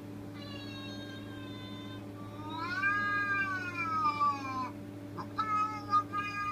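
Recorded cat meows from a sound-effects video, played back through a speaker: a faint drawn-out call, then a long loud meow that rises and then falls in pitch, then another long meow starting about five seconds in. A steady low hum runs underneath.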